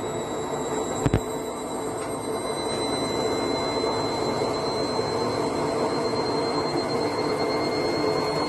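Candy front-loading washing machine running, a steady whirring noise with a high whine that slowly rises in pitch. A single knock about a second in.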